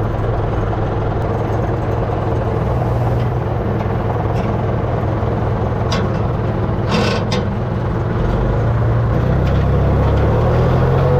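Farm tractor engine running steadily, with a few short clatters about six and seven seconds in. The engine speed rises near the end.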